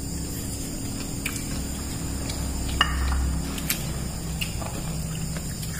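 Steady high-pitched chirring of crickets, with a low hum underneath and a few small clicks.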